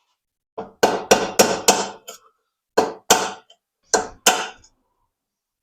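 Hammer blows on a nail used as a punch against a bushing sleeve in a steel motor cradle. There is a quick run of about five strikes, then two pairs of strikes. The sleeve is not budging.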